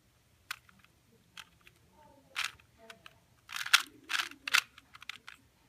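A 2x2 Rubik's cube being twisted by hand: a run of short plastic clicks and clacks as its layers are turned, irregularly spaced and coming faster in the second half.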